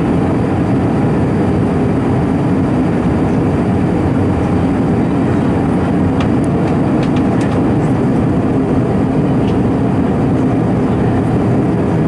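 Steady cabin noise of an Airbus A320 in flight on approach, heard from a seat over the wing: its CFM56 turbofan engines and the rush of air over the fuselage, a constant deep roar.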